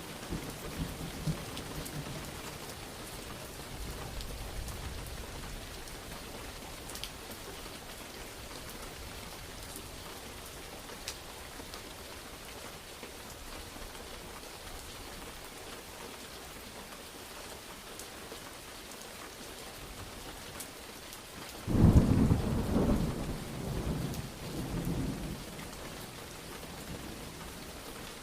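Steady rain through a thunderstorm, with a low rumble of thunder dying away over the first few seconds. About three-quarters of the way through, a sudden loud clap of thunder breaks and rolls on for about three seconds before the rain alone remains.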